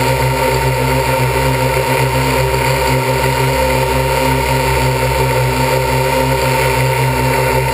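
MikroKopter L4-ME quadcopter's electric motors and propellers running in flight: a loud, steady whirr that holds an even pitch.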